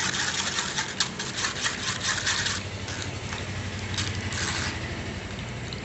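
Steel spoon scraping and pressing wet blended cucumber pulp against a stainless steel mesh strainer, in irregular rubbing strokes that come thickest in the first few seconds.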